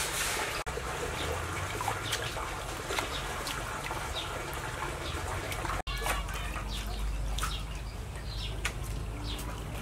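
Water dripping and trickling from wet fresh rice noodles as they are lifted by hand out of a basin of water and laid in coils, with small birds chirping in the background.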